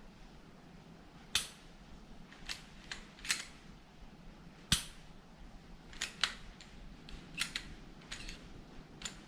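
Sharp metallic clicks and clacks from a freshly cleaned and lubricated Glock 19 pistol as its slide and action are worked by hand. There are about a dozen clicks spread irregularly, some in quick pairs.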